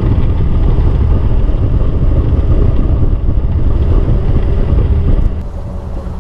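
Willys M38 jeep's four-cylinder flathead engine pulling the jeep along, heard from aboard the open, doorless vehicle with road and wind noise mixed in. It grows louder just before the start, holds, then eases back a little past five seconds in.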